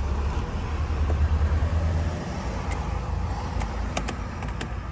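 Mercedes-Benz GLK 350's 3.5-litre V6 cranking and starting, then running with a low, steady engine sound that eases after about two seconds, with a few light clicks later on. It runs only because ignition current is being fed by jumper wire to the engine-management relay, whose ignition feed had been lost.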